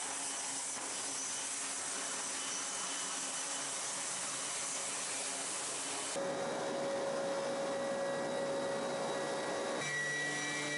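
Steady hiss on the flight line, then, after a cut about six seconds in, a steady drone with one strong held tone inside the cabin of a C-2 Greyhound carrier transport plane, shifting to a lower hum with several held tones near the end.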